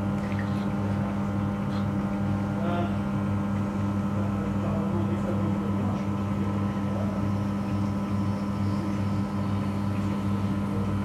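Electric potter's wheel motor running with a steady low hum, the lowest tone pulsing slightly and regularly as the wheel turns.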